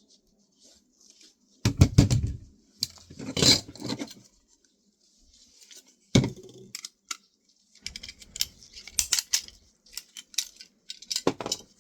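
Small metal parts of a dismantled floppy disk drive clinking and clattering as they are handled and dropped into sorting boxes, in irregular bursts.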